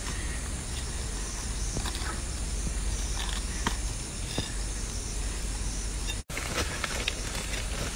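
Steady outdoor night ambience of calling insects, with a few faint clicks and scrapes of a small knife digging in soil. The sound cuts out completely for a moment about six seconds in.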